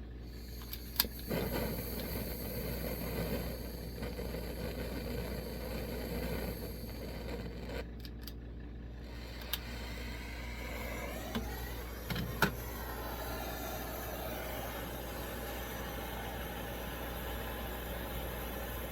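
Coleman 523 gasoline stove burner running with a steady hissing roar, rougher in the first few seconds, with a few sharp clicks around the middle. The owner suspects water left in the valve is keeping it from running right.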